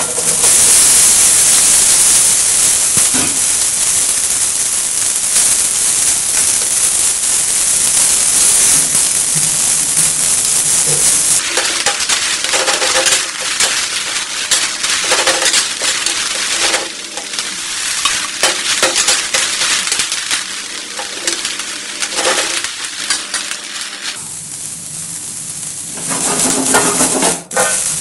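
Cauliflower florets and green capsicum pieces sizzling as they hit a hot steel pan, a loud hiss that starts suddenly and eases after about ten seconds. Stirring strokes scrape across the pan throughout, with knocks of the pan being shaken near the end.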